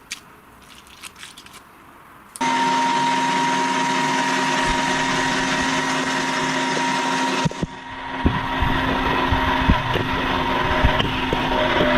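Electric meat grinder switched on about two and a half seconds in, its motor running with a steady hum. From about eight seconds in, irregular cracks and snaps join it as something crunchy is fed through and crushed.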